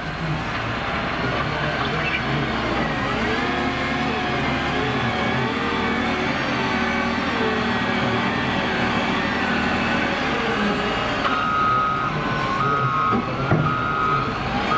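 Cat 966M wheel loader's diesel engine working under load as the bucket is pushed into a sand pile, its pitch rising and falling. About eleven seconds in, its reversing alarm starts beeping in short repeated pulses as it backs out with a full bucket.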